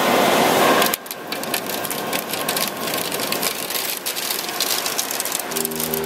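Okuma ES-L10 CNC turning center running, with coolant spraying and splashing inside the enclosure that cuts off suddenly about a second in. The machine keeps running with a fast, irregular clicking rattle, and a brief pitched hum comes near the end.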